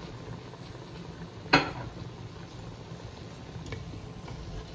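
A wooden spatula knocking once, sharply, against a stainless-steel cooking pot about one and a half seconds in, with a few faint taps near the end, over a steady low hum from the pot on the hob.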